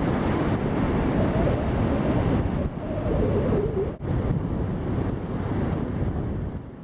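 Wind buffeting the microphone over the rush of ocean surf, with a brief dip about four seconds in.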